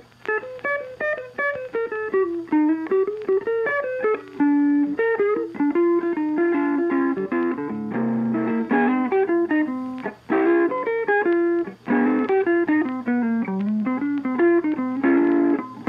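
Instrumental background music: a guitar picking a quick melody of separate notes over a steady low bass note.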